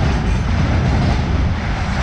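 Freight train of railway tank cars rolling past steadily, the wheels running on the rails.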